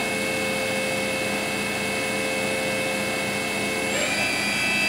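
Kitamura Mycenter 1 vertical machining center's spindle running with a steady whine of several tones. About four seconds in, the pitch glides up as the spindle is stepped to a higher speed.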